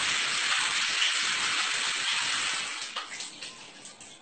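Shower water running, a steady hiss that fades away about three seconds in.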